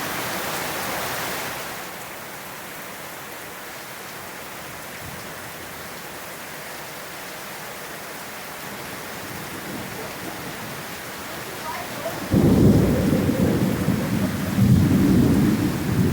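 Steady rain falling. About twelve seconds in, a sudden loud, deep rumble of thunder breaks in and rolls on in swells.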